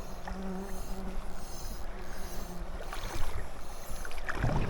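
Running river water and wind buffeting the microphone, with a low steady hum through the first half.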